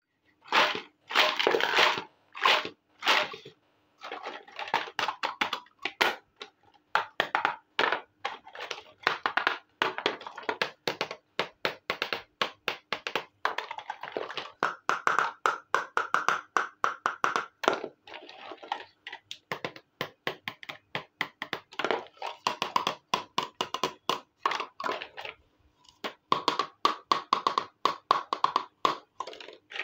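Small hard-plastic toy kitchen pieces clattering and clicking against each other and a plastic basket as they are handled, lifted out and set down, in quick irregular knocks with a few longer rattling stretches.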